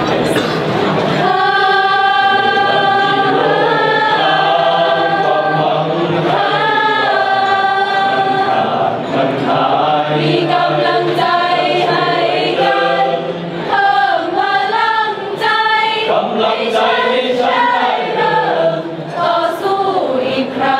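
Choir of police student trainees singing in harmony, with long held notes that change pitch every second or two.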